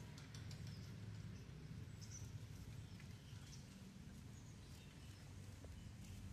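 Faint outdoor ambience: a steady low rumble with a few small rustles and light clicks from a hand handling a nylon mesh insect net over dry weeds.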